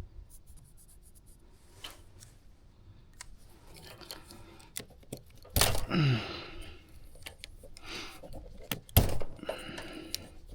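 Handling noises from work on an HVAC unit: scattered clicks and knocks. A louder clatter with a short falling scrape comes about five and a half seconds in, and a sharp knock about nine seconds in.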